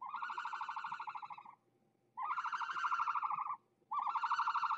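A sound effect presented as an ostrich call: three long, rattling calls of steady pitch, each about a second and a half long, with short gaps between them.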